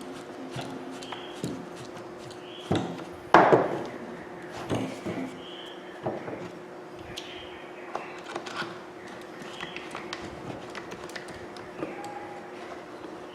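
Scattered clicks and knocks of a rotary hammer's housing parts and screws being handled and fitted together by hand, with one louder knock about three and a half seconds in, over a steady low hum.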